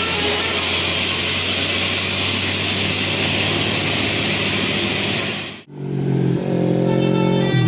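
A bus passing close at speed: engine and loud rushing road noise. Near the end the sound cuts off abruptly and a chord of several steady tones begins.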